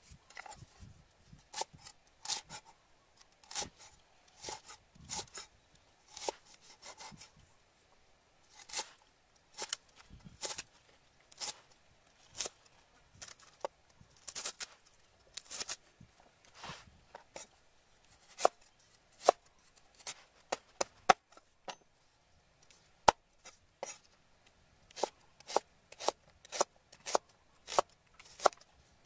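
A steel cleaver chopping on a thick round wooden chopping block, slicing lemongrass and shallots. The blade hits the wood in sharp knocks that come in irregular runs, often a few a second.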